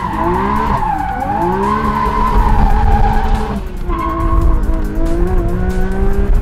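Porsche sports car's engine revving up and down while its tyres squeal through a drift, heard from inside the cabin, with a short drop in the sound about three and a half seconds in.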